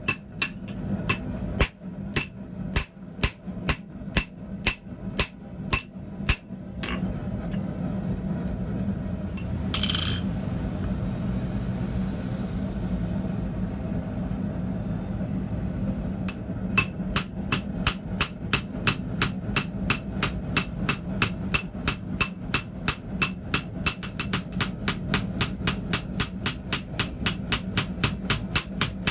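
Hand hammer striking hot D2 steel on an anvil, forging the edge of a chisel: a run of evenly spaced blows, about two to three a second, stops after about seven seconds. About ten seconds later the hammering starts again, faster, at about three blows a second. A steady low hum runs underneath.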